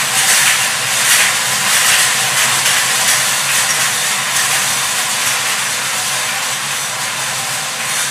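Numbered lottery balls rattling and tumbling inside five hand-turned wire ball cages spinning together, a dense, steady rattle.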